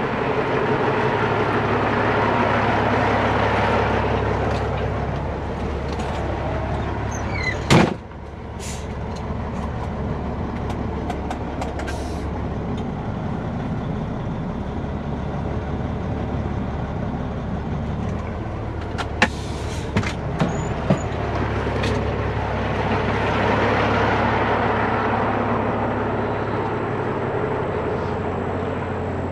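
Peterbilt heavy-duty wrecker's diesel engine running steadily as the truck is driven into position, swelling louder twice. There is a single loud knock about eight seconds in and a few light clicks later.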